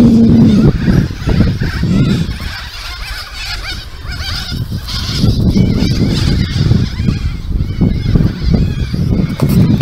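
A flock of parrots screeching and chattering as they settle to roost at dusk. Gusty wind rumbles on the microphone and eases off for a moment a few seconds in.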